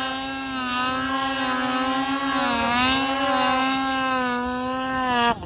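Snowmobile engine running hard at high revs as the sled is ridden through deep powder, its pitch dipping and rising a little with the throttle. The sound cuts off abruptly near the end.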